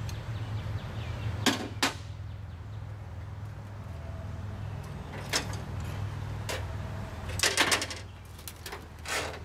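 Clicks and knocks of a coiled red air line and its metal fittings being handled against a semi truck's deck plate and pogo stick: a few single sharp knocks, then a quick rattling run of them, over a steady low hum.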